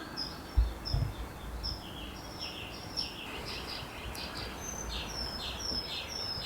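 Birds chirping: a steady run of short, high chirps that grows busier after about three seconds. Two low thumps come about half a second and a second in.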